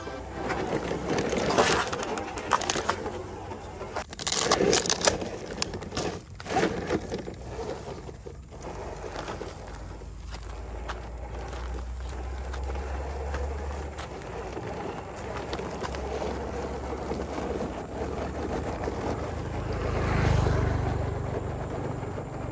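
Scale RC crawler truck driving over loose rocks and gravel: tyres crunching and scraping, with stones knocking and clattering, dense in the first several seconds, then steadier rolling noise.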